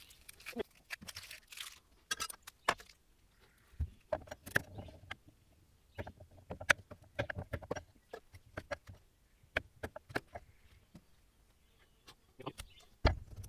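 Chef's knife chopping carrots on a bamboo cutting board: irregular sharp knocks of the blade striking the board. A papery rustle of onion skin being peeled in the first couple of seconds, and a heavier thump near the end.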